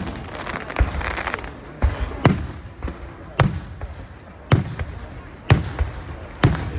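Fireworks display: aerial shells bursting with sharp bangs about once a second, each trailed by a short low rumble.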